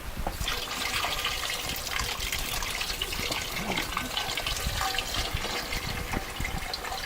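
Water pouring and splashing into a vessel, starting abruptly just after the beginning and going on steadily.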